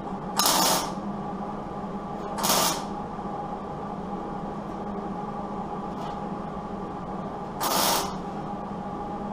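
Three short tack welds along the edge of a truck door skin, each a brief hissing crackle of about a third of a second: about half a second in, near two and a half seconds, and near eight seconds. A steady hum runs underneath.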